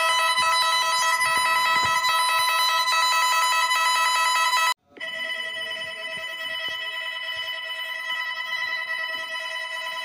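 Electronic emergency-alert-style alarm tone, several steady pitches sounding together with a rapid trill. It cuts off about five seconds in, and a second, quieter multi-tone alert begins at once.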